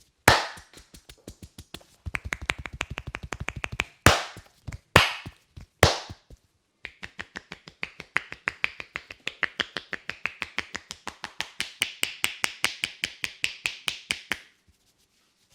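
Hands tapping and slapping on a person's head in Indian head massage percussion. A fast run of taps is followed by three louder slaps about a second apart, then a steady tapping of about five or six strikes a second that stops suddenly near the end.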